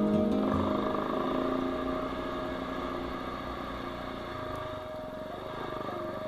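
Single-cylinder dual-sport motorbike engine running at low, fairly steady revs. A music track fades out in the first half-second.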